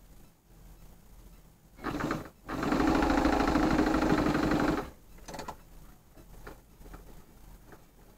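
Electric sewing machine stitching through quilted fabric and bias binding: a short burst about two seconds in, a brief pause, then a steady run of a little over two seconds at a quick, even stitch rate that stops abruptly.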